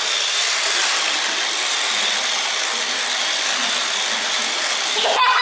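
Toy RC car's small electric motor and plastic gearbox whirring steadily as it drives, with a few clicks near the end.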